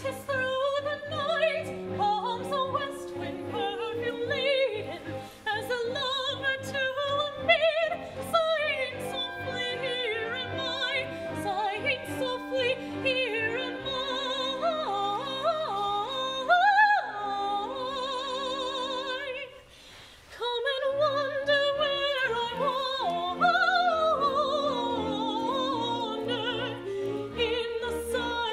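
A woman singing in full operatic voice with a wide vibrato over a theatre orchestra's sustained accompaniment. The music drops away for a moment about two-thirds of the way through, then resumes.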